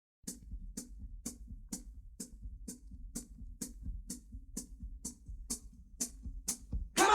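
Drum intro of a record: a drum kit plays alone, the hi-hat ticking about twice a second over a soft kick drum, after a short silence at the start. The full band, guitars and bass, comes in loudly at the very end.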